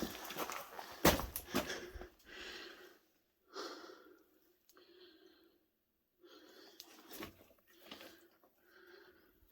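A person scrambling down through rubble, with sharp knocks and clatter of stones for the first two seconds. After that comes heavy, wheezy breathing, about one breath a second, with brief pauses between breaths.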